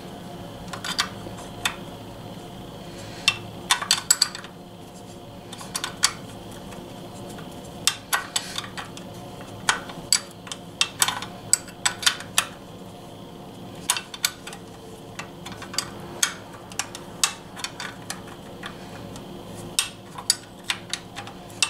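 Irregular metallic clinks and ticks of a line wrench on the clutch hydraulic line fitting as it is threaded and tightened into the slave cylinder, over a steady hum.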